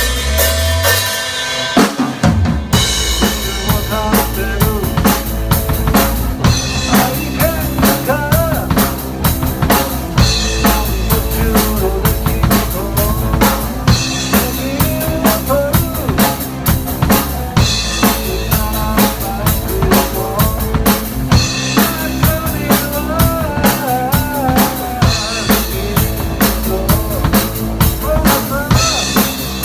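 Band music with a drum kit keeping a steady beat under bass and wavering melodic lines; the full band comes in about two seconds in.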